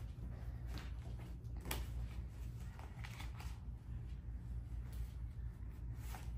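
Sheets of paper and a card folder rustling and tapping in short scattered bursts as they are leafed through and shut, over a steady low room hum.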